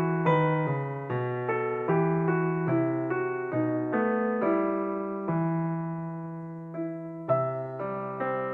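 Piano music: a slow melody of struck notes over chords, with one chord held for about two seconds past the middle.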